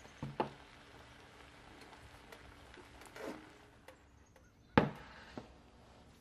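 A few sharp knocks and clatters of kitchenware: a pair just after the start, a softer one about halfway, and the loudest near the end, as a ceramic serving bowl is set down on a wooden table.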